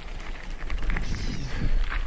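Bicycle riding over a rough dirt trail, with scattered knocks and rattles over a steady low rumble.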